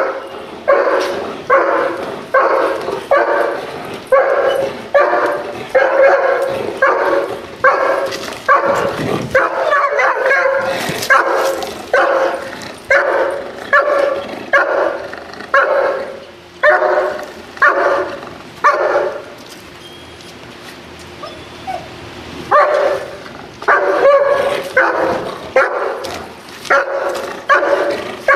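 German Shepherd barking over and over, about two barks a second, with a pause of about three seconds past the middle. The dog is barking in drive for the ball while it is held in the heel position at the handler's leg.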